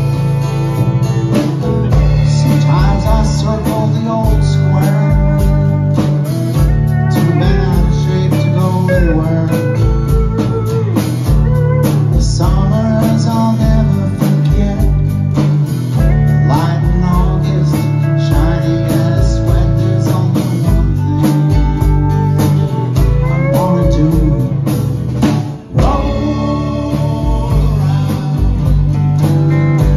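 Live band playing a country-blues song: a man singing over acoustic guitar, electric bass, drum kit and pedal steel guitar. The band breaks off for a split second late on, then carries on.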